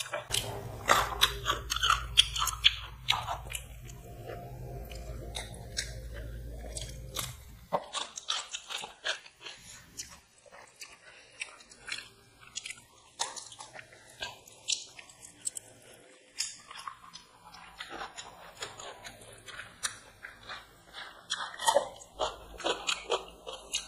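Close-up chewing of chicken biryani eaten by hand, a run of many small sharp mouth clicks at an irregular pace. A low hum sits under the first several seconds and cuts off suddenly about eight seconds in.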